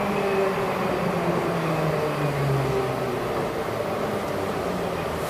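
Metrowagonmash 81-775.2 'Moscow-2024' metro train slowing in a station: a steady running rumble and hiss, with the traction motors' whine falling in pitch over the first three seconds, then settling to a low hum as the train comes nearly to a stop.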